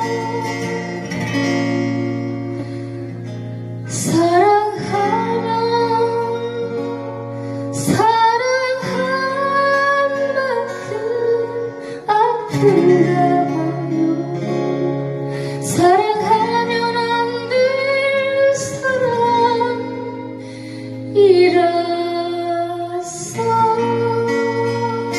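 A woman singing a slow song accompanied by two acoustic guitars, strummed and picked chords under her voice. Her sung phrases begin about every four seconds.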